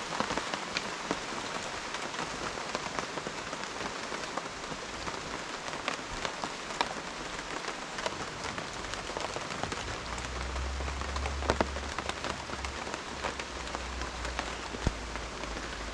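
Steady rain falling, with many scattered drop taps, and a low rumble that comes in about ten seconds in.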